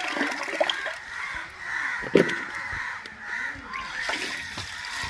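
Tap water running into an aluminium pot, with crows cawing several times over it; the loudest call comes a little over two seconds in.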